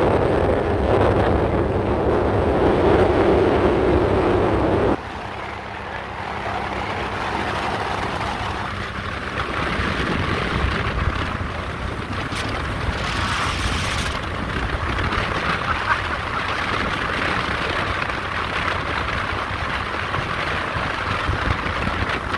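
Motorboat cruising: the engine runs under wind buffeting the microphone and water rushing past the hull. The sound drops off abruptly about five seconds in and carries on as a steadier, quieter rush of wind and water.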